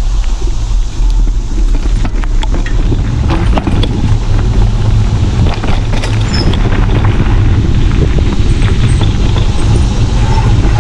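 Wind rushing over the microphone of a camera riding on a moving bicycle, a loud steady low rumble, with scattered rattles and knocks from the bike going over the trail.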